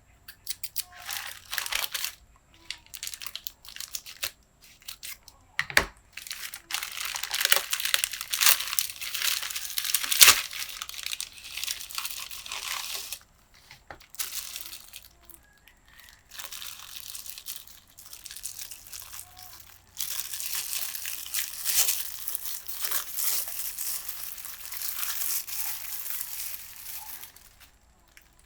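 Packaging being handled and opened: stretches of crinkling and tearing with short pauses between them, and two sharp clicks about six and ten seconds in.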